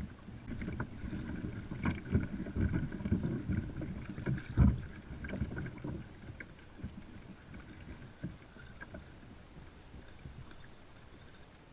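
Water slapping and knocking against a kayak hull, with a busy run of low thumps in the first half, the loudest about four and a half seconds in, then settling to a quieter lapping.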